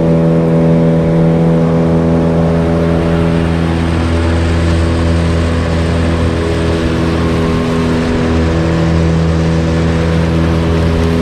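Motor of a small aluminium river boat running steadily at cruising speed, a constant engine note with water and wind noise under it.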